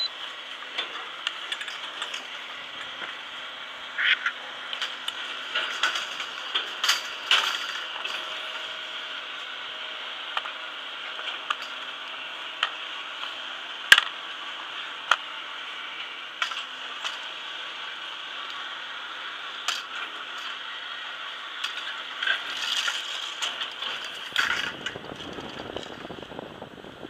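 Platter (button) ski-lift station machinery running with a steady hum, with frequent sharp clicks and clatters. A low rumble comes in near the end as the rider is towed up the slope.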